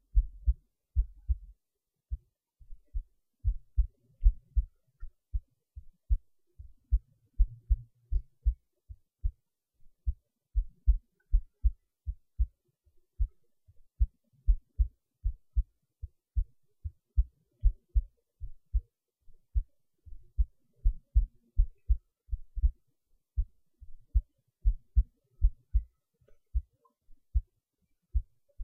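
A heartbeat recording: a heart beating in a steady rhythm, each beat a close pair of short, low thumps.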